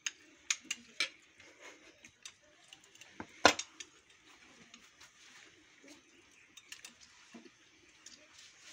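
Tableware clinking and knocking at a meal table: a handful of short, sharp clicks from dishes and glasses, several in the first second and the loudest about three and a half seconds in.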